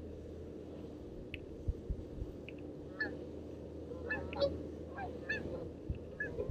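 A flock of geese flying overhead, honking: a string of short calls that begins about three seconds in and comes more often toward the end.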